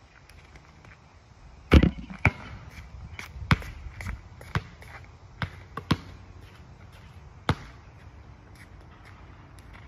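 Basketball bouncing on an asphalt court: about nine sharp, separate bounces at irregular spacing, the loudest about two seconds in.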